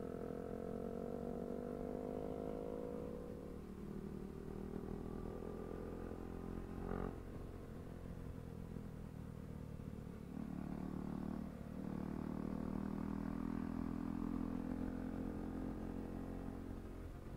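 KTM RC 390 single-cylinder engine heard from the saddle while riding: the engine note sinks over the first few seconds, picks up again about ten seconds in with a brief dip, then holds steady, over a constant low rumble of wind and road. A short knock sounds about seven seconds in.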